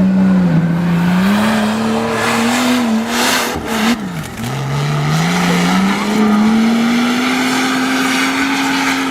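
Off-road 4x4 engine revving hard under load, its pitch climbing in steps, falling away sharply about four seconds in as the throttle lifts, then climbing again and holding high.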